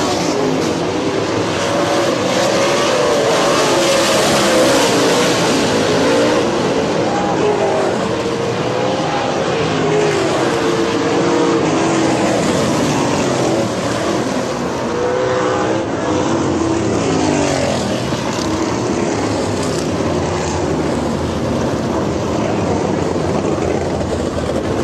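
Winged sprint car engines running hard on a dirt oval, their pitch rising and falling again and again as the cars lap.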